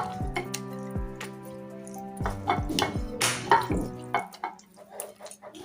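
Background music over wet squelching of raw chicken pieces being mixed by hand with lemon juice, ginger and salt.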